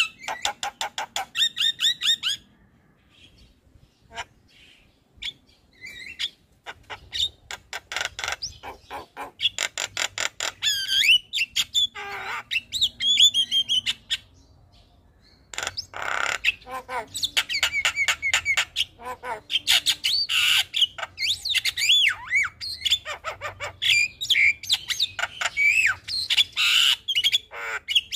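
Javan myna (jalak kebo) calling: rapid runs of harsh chattering notes and squawks mixed with gliding whistled notes, in bursts broken by two short pauses.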